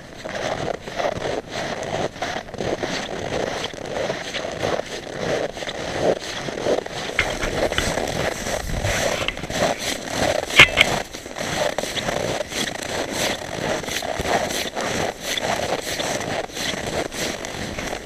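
Footsteps of two people crunching through deep snow, a steady walking rhythm of crunchy steps, with one sharp click about halfway through.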